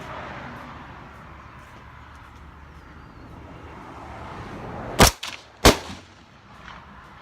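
Two rifle shots about two-thirds of a second apart, sharp cracks with a short ringing tail, heard over a steady low background.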